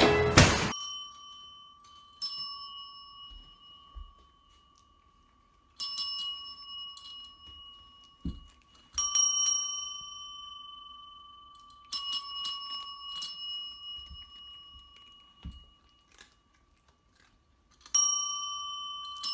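A metal desk service bell being struck by a cat's paw: a bright ding rung over and over in small bouts of quick taps, each ring dying away slowly.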